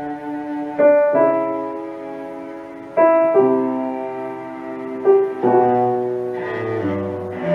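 Classical music from a cello sonata, led by piano: chords struck about every two seconds, each ringing and fading, with held low notes coming in near the end.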